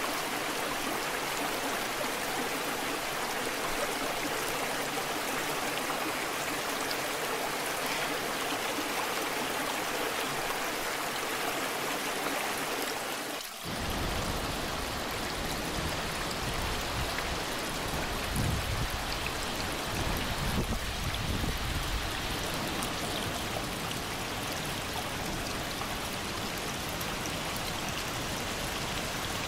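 Waterfall water rushing and splashing in a steady wash. About 14 s in the sound dips for a moment and comes back with a deeper low rumble under the splashing.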